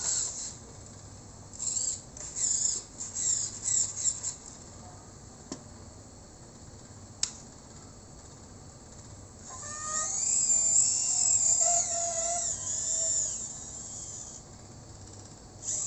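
Small electric motor of an RC dump truck's tipping mechanism whining as it raises the dump bed, its pitch wavering for about five seconds in the second half. Several short whirring bursts come from it two to four seconds in.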